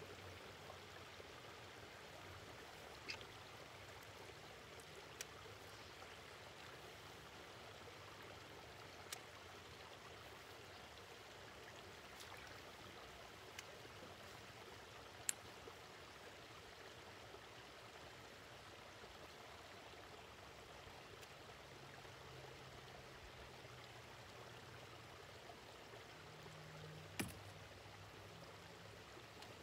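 Faint, steady rush of a small waterfall or drain inlet running into the lake, with a few isolated sharp clicks, the loudest about halfway through and another near the end.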